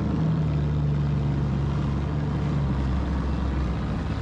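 Jet ski engine running steadily.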